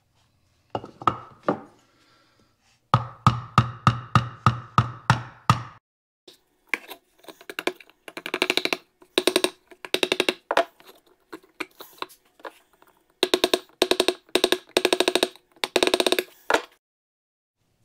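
Hand tool tapping and chipping at the crusted, corroded cast-iron frame of a 1936 Kilgore G-Man cap gun lying on a wooden board. A few knocks come first, then a run of about nine evenly spaced sharp knocks, then quicker bursts of rapid tapping.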